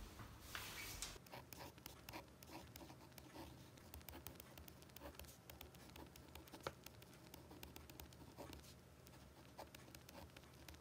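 Faint scratching of a pen writing by hand on the paper page of a spiral-bound planner, in short uneven strokes and ticks.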